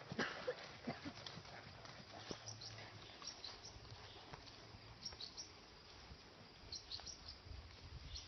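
Faint hoofbeats of an American Saddlebred on grass, a scatter of soft knocks that thins out after the first two or three seconds as the horse moves off. A few short high chirps, like small birds, come later.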